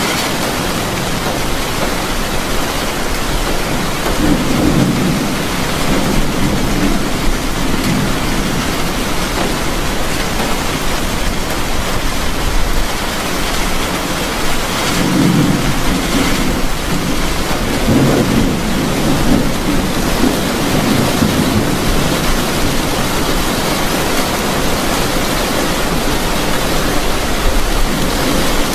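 Heavy rain beating on a vehicle's roof and windows, heard from inside as a steady rushing hiss, with deeper rumbles swelling up about four, fifteen and eighteen seconds in.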